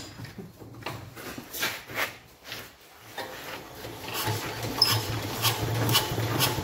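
13 hp single-cylinder Hatz diesel being hand-cranked on a cold start. Scraping and knocking as the crank is worked, then about three seconds in it spins faster, with a steady low hum under repeated knocks that grows louder.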